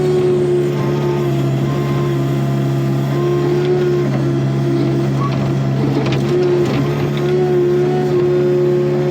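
Takeuchi TB145 excavator's diesel engine running steadily under work, with a few light knocks about four and six seconds in.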